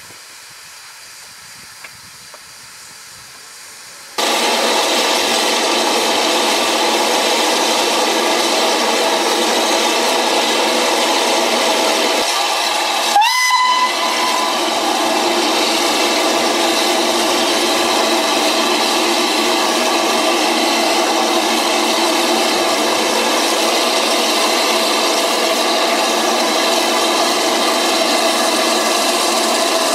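Steam locomotive, Southern Railway S15 No. 847, hissing steam loudly and steadily. The hiss starts suddenly about four seconds in. About halfway through, the whistle gives one short blast that slides up in pitch.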